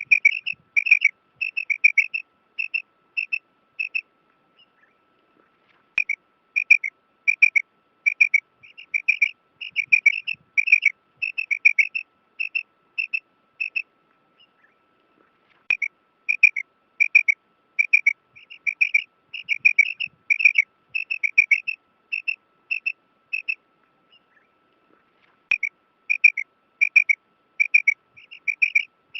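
Female quail calling: a series of short, high chirping notes, about two a second, in bouts of several seconds with brief pauses between them. This is the call used to draw male quail. A faint steady whine runs underneath, and there is a faint click at the start of each bout.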